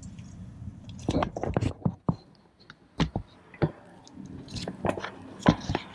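Ratchet clicking in short, irregular runs, with light metal ticks, as a 3/8-drive ratchet on a swivel and extension works a starter's top mounting bolt loose.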